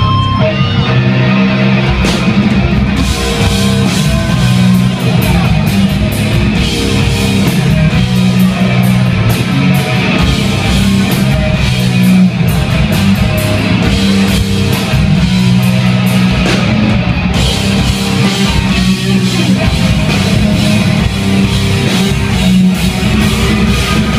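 A live rock band playing loud, with electric guitars, bass and a drum kit. Cymbal strokes ring out from about three seconds in and drop away about seventeen seconds in.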